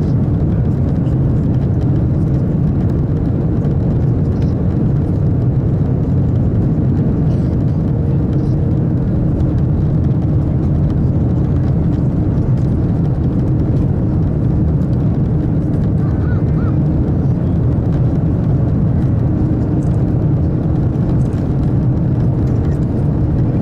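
Steady, deep rumble inside the cabin of a JR L0 series maglev train running levitated at about 500 km/h through a tunnel, with a faint steady hum over it.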